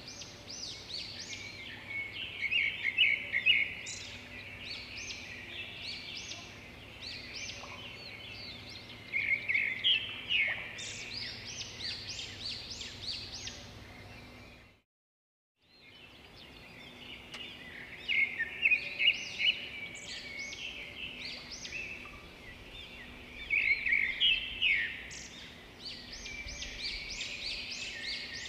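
Birdsong: many small birds chirping and twittering in quick clusters of short notes over a faint steady hum. It cuts out completely for about a second about halfway through, then starts again.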